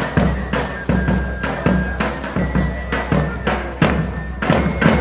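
Loud dance music with a heavy drum beat, about two beats a second, and held melody notes above it.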